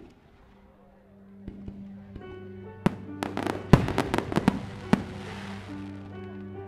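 Aerial fireworks going off: a rapid string of sharp bangs from about three to five seconds in, then a crackling hiss, over music with sustained notes.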